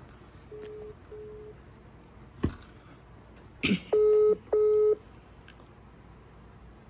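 Telephone ringback tone heard through a phone's speaker while an outgoing call waits to be answered: double rings of two short beeps, repeating about every three seconds, faint at first and much louder from about four seconds in. A knock and a brief rustle come between the rings.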